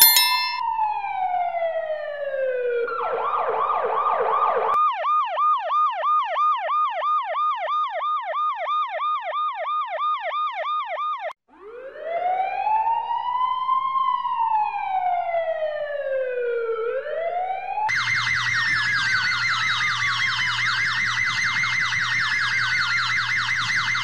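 Electronic police siren: a wail sliding down in pitch, then a fast yelp repeating about four times a second. After a short break, a fire truck siren wails in one slow rise and fall. About 18 seconds in, a dense steady blare with falling sweeps over it takes over.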